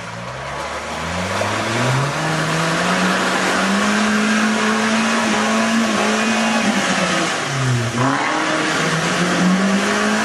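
Modified Suzuki Jimny 4x4's engine revving hard as it drives through deep mud and water, its wheels churning the mud. The revs climb over the first few seconds and are held high, dip briefly about eight seconds in, then climb again.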